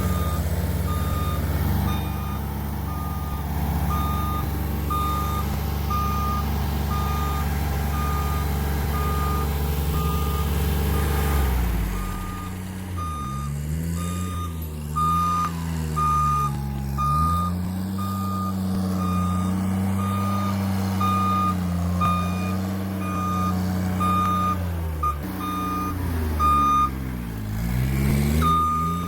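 A powered work lift's warning alarm beeping about once a second over its running engine. The engine speed dips and rises about twelve seconds in and again near the end as the lift is worked.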